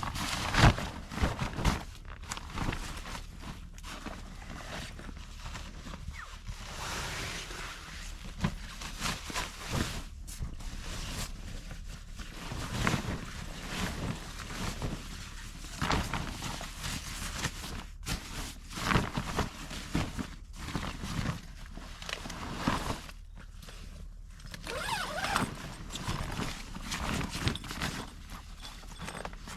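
Irregular rustling, crunching and knocks of someone moving about and handling things outdoors, with footsteps.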